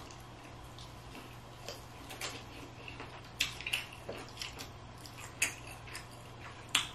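Mouth sounds of a man eating seafood boil: scattered short, sharp smacks and clicks, a dozen or so, the loudest a little past halfway and near the end, over a faint steady low hum.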